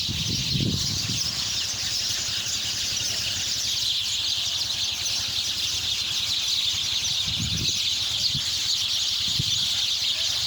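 A dense chorus of many small birds chirping continuously, their overlapping high calls forming a steady twittering mass. A few low rumbles come through about a second in and again toward the end.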